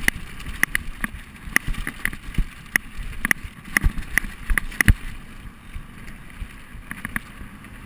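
Mountain bike rolling fast down a rough dirt trail, with wind rumble on the microphone. The bike rattles and clacks irregularly over the bumps, and the clacks thin out after about five seconds.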